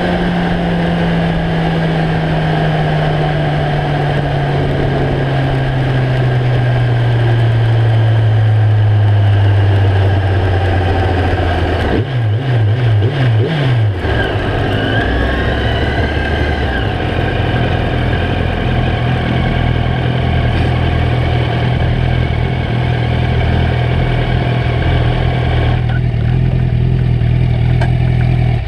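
Yamaha R1 inline-four motorcycle engine heard from an onboard camera at highway speed, with wind rushing over the microphone. The engine note falls steadily for about twelve seconds as the bike slows, jumps up and down a few times like quick gear changes, then holds a steady cruising note.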